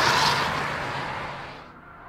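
Camouflaged Hyundai i30 prototype hatchback driving away after passing close by, its engine and tyre noise fading steadily. The sound thins out abruptly near the end.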